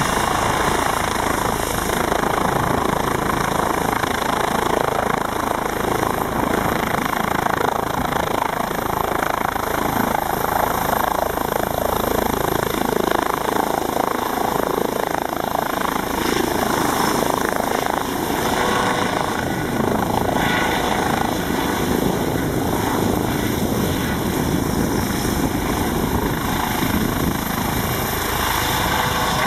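Eurocopter EC135 police helicopter's twin turbine engines and main rotor running at full power as it lifts off and hovers low, turning on the spot. The rotor noise is steady throughout, with a thin, high turbine whine above it.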